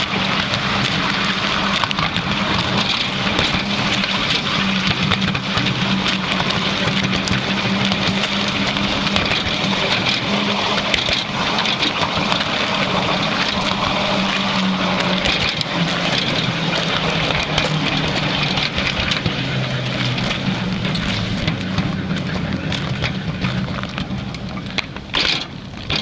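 Miniature railway train running along its narrow-gauge track: a steady low hum from its drive with a continuous rattle of wheels on rails. The noise eases off near the end as the train slows towards the buffer stop, with one brief louder burst just before.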